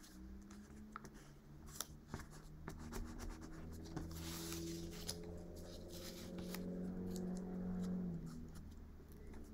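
Sheet of printer paper being folded and creased by hand: scattered light clicks and crinkles, with a short rustle about four seconds in. Under it run faint low steady tones that change pitch a few times and swell near the end.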